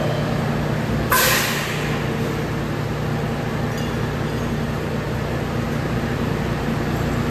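New York City subway train sounds: a steady low hum with a sharp hiss of noise about a second in that dies away quickly.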